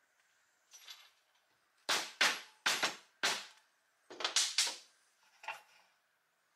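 Sharp metal knocks of a deep socket being tapped to seat a wheel on the steel axle of a Doepke Heiliner toy scraper. There are four loud knocks, then a quicker group of three and a last lighter one.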